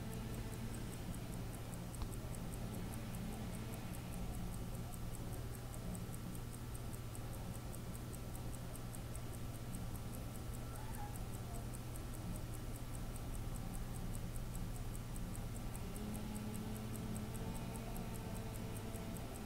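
Ticking of an old R&S 'Rands' 15-jewel Swiss lever-escapement wristwatch movement: a fast, even run of light, high ticks, several a second, over a steady low hum.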